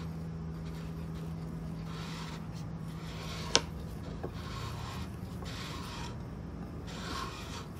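Chopsticks stirring dry flour with salt and ground black pepper in a ceramic bowl: repeated soft scraping swishes, with one sharp click about three and a half seconds in.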